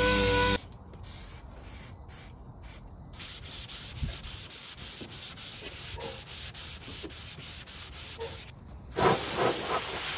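Body filler on a plastic bumper cover being hand-sanded with 180-grit paper on a block: quick, even back-and-forth scrapes, about five strokes a second. About nine seconds in, a loud steady hiss of compressed air from the air hose takes over.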